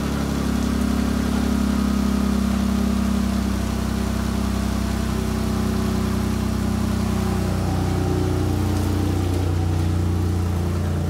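Freshly swapped-in 3.2-litre V6 engine in a Ram ProMaster running at idle on its first start after the swap. The engine note is steady, with its pitch shifting slightly a few times.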